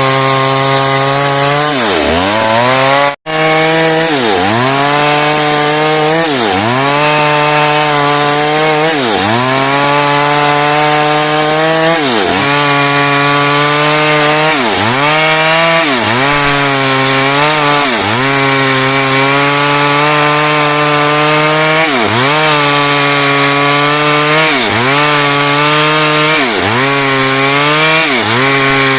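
Stihl chainsaw cutting lengthwise through hardwood heartwood under load. The engine pitch sags sharply and climbs back about once every second and a half as the chain bogs in the cut. The sound cuts out for an instant about three seconds in.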